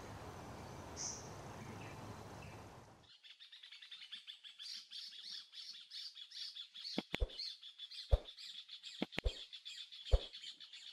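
Faint background hiss with one brief high chirp, then about three seconds in it switches to a dense, fast chatter of many small birds' chirps. Several sharp clicks sound over the chatter.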